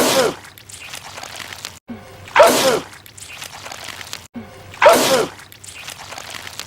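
A man's loud sneeze, repeated as a loop: the same sneeze three times, about two and a half seconds apart, each set off by a short rising "ah" just before it.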